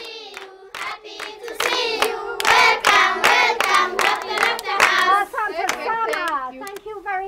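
A group of young children singing together and clapping their hands along with the song. The singing grows louder about a second and a half in.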